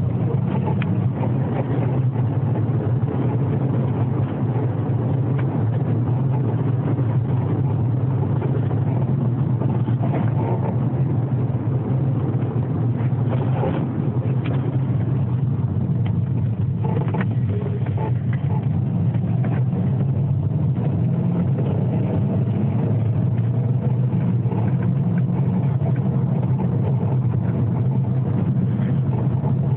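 Volkswagen Golf Mk4 in motion: steady engine and road rumble, with a few faint creaks or squeaks from the car's body or suspension standing out briefly midway through.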